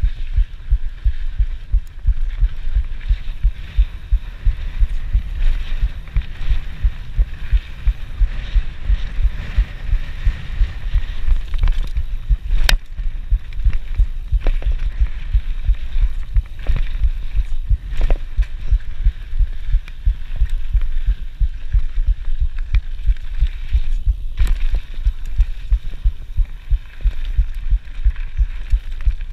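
The mountain biker's own heartbeat, a quick run of even low thuds, over a steady hiss of riding on the dirt trail, with a few sharp knocks from the bike partway through.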